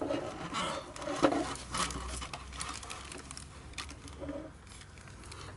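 Clear plastic packaging bag crinkling, with irregular small clicks and taps, as a ring light is lifted out of it and handled; busiest in the first couple of seconds, then sparser.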